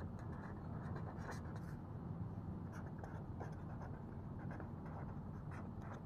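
Green marker pen writing on paper: faint, short scratching strokes over a steady low hum.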